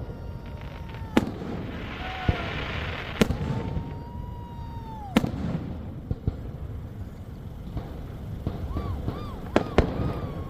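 Fireworks going off: sharp bangs about every two seconds, a spell of crackling about two seconds in, and high whistling tones between the bursts, with two bangs close together near the end.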